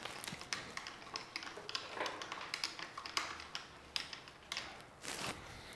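Hex key turning the bolt inside an e-bike's handlebar stem clamp, tightening the stem down onto the headset: a run of small, irregular metallic clicks and taps as the key is worked and the bar is handled.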